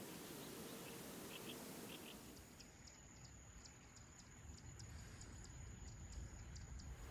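Faint outdoor ambience with a few short high bird chirps. About two and a half seconds in, the background drops and a faint high ticking repeats two to three times a second over a low rumble.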